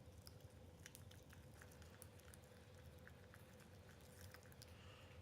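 Near silence with faint, scattered sticky clicks of homemade slime being handled.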